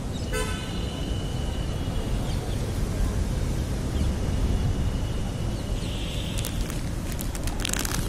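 Steady city traffic rumble with vehicle horns honking: a short toot just after the start, then long, high, steady horn notes. A brief crackle near the end.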